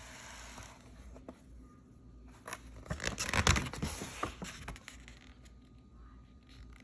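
Rustling and scraping of something being handled: a run of scratchy clicks and rustles starting about two and a half seconds in and lasting a couple of seconds.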